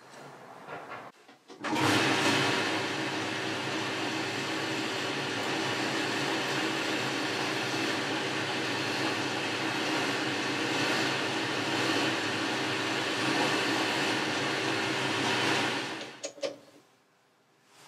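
Boxford metalworking lathe starting up about two seconds in and running steadily with a hum, then switched off and winding down near the end.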